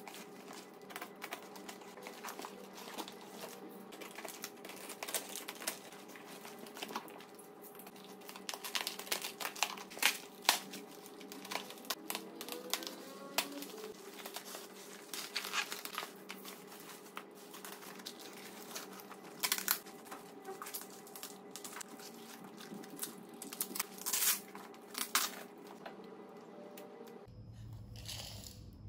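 A cardboard shipping box being unpacked by hand: irregular crinkling and crackling of bubble wrap and plastic film, with rustling cardboard flaps and sharp tearing sounds.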